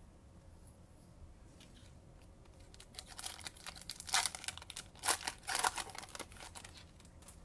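Wrapper of a Bowman baseball card pack torn open and crinkled in the hands, a string of sharp crackles starting about three seconds in and lasting some four seconds.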